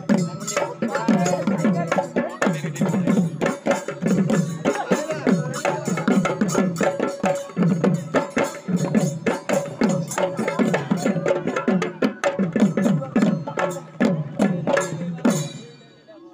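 Live Bihu music: dhol drums beating a fast, driving rhythm, each deep stroke dropping in pitch, with a steady held note above the drumming. The music stops abruptly near the end.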